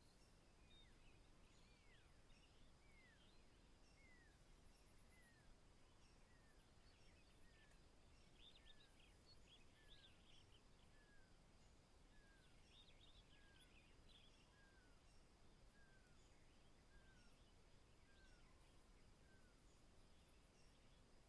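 Faint morning savanna ambience: a bird repeats a short falling whistle about once a second, fading out near the end. Bursts of higher twittering from other birds come twice in the middle, over a faint steady high-pitched tone.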